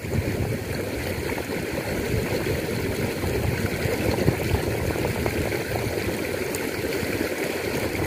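Small stream flowing steadily, an even rush of water.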